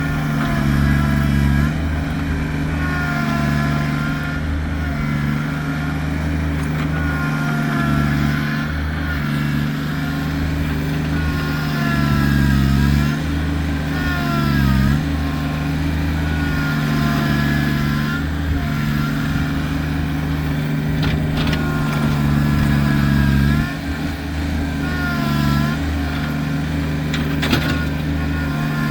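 Kubota tractor's diesel engine running steadily under load, with a whine that dips and rises again every few seconds as it works.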